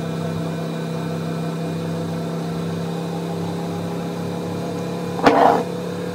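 A steady electrical appliance hum. About five seconds in there is one short clatter.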